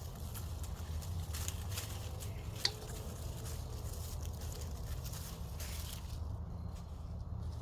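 Hands digging and rummaging through loose soil in a grow bag: soft, irregular rustling and scraping, with one short sharp click a little under three seconds in.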